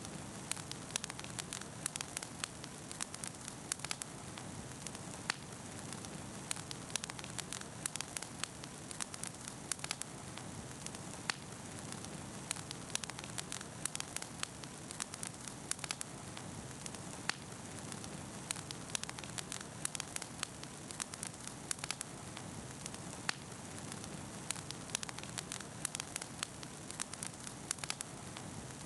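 Wood bonfire burning with a steady hiss and frequent irregular crackles and pops.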